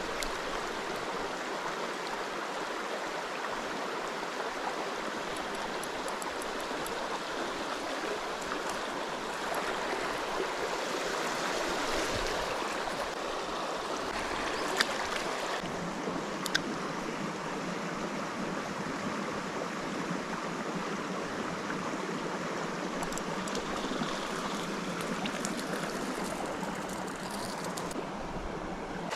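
Stream water running steadily over rocks, a continuous rushing hiss, with a few faint sharp clicks about halfway through.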